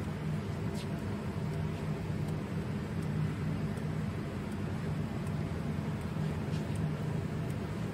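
Mida LI220 RFID label inspection and rewinding machine running: a steady low hum from its drive and web rollers, with a few faint ticks.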